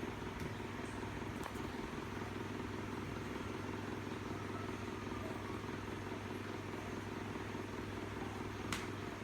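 Domestic cat purring steadily, with one faint click near the end.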